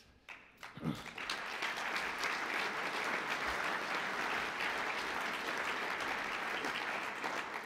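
Audience applause that builds up over the first second or so, holds steady, and fades away near the end.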